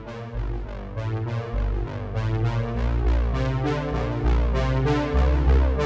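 Background music: synthesizer and keyboard notes in a steady run over a deep bass, growing louder over the first couple of seconds.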